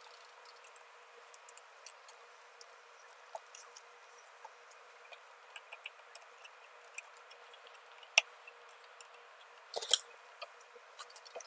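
Small metallic clicks and ticks of a hex key working the chainring bolts on an e-bike's chainring spider. There is a sharper click about eight seconds in and a brief louder clatter of clicks near ten seconds.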